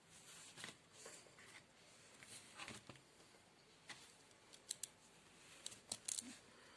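Faint, scattered clicks and taps of plastic Lego Technic parts being handled, coming closer together near the end.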